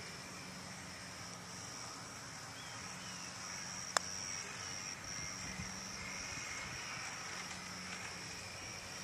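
A single sharp click about four seconds in: a putter striking a golf ball on the green. Around it, a faint steady outdoor background with a thin high buzz.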